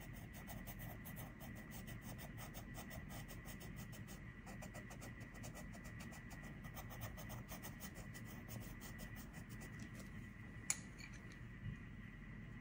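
Coloured pencil scratching on paper in quick, short back-and-forth shading strokes, stopping about ten seconds in. Then a sharp click, followed by a fainter one about a second later.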